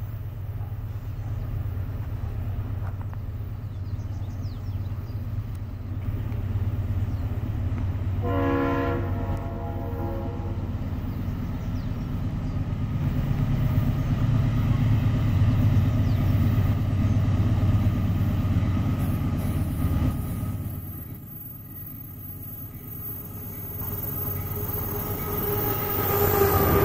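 GE BB40-9WM diesel-electric locomotive running steadily as it approaches with a hopper train. It sounds its horn once, for about two seconds, some eight seconds in. Near the end the engine and wheel noise rise as it passes close by.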